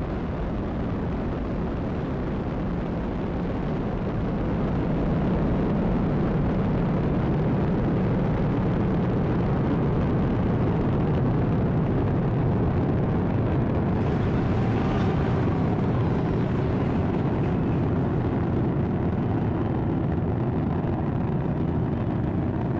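Falcon 9 first stage's nine Merlin 1D engines firing during ascent, a steady deep rumble that grows a little louder about five seconds in.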